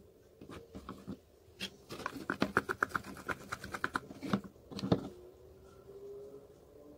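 Homemade slime being squeezed and stirred by hand in a plastic tub: a quick run of small wet, sticky clicks and squelches for about two seconds, with a sharper knock a little later.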